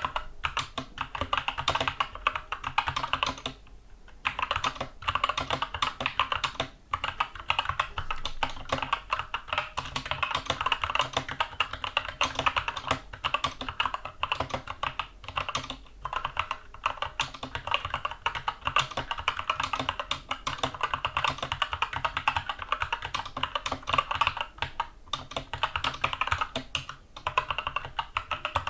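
Continuous fast typing on a Skyloong SK64 mechanical keyboard with tactile Gateron Brown switches: a dense stream of key clicks and clacks. The typing pauses briefly about four seconds in and again a couple of seconds later.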